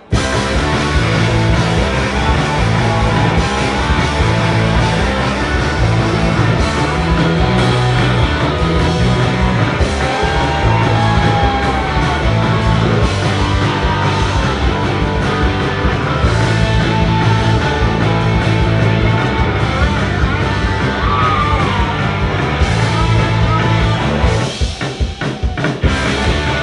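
Live rock band playing an instrumental passage on electric guitars. The sound is loud and dense, with a driving rhythm, and thins out briefly about two seconds before the end.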